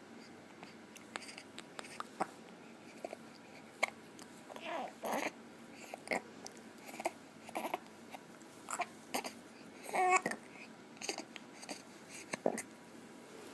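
Baby hiccuping and babbling: short, sudden little sounds about one a second, with a longer voiced coo about ten seconds in.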